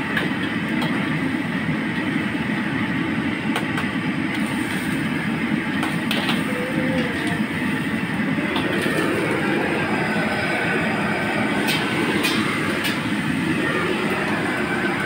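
Gas wok burner running at full blast, a steady low rushing roar, with a few light clinks of metal cookware here and there.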